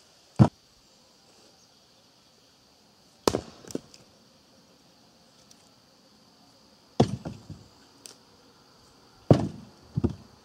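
Axe splitting firewood: five sharp chops into the wood, spaced a few seconds apart, several followed by quicker, quieter knocks.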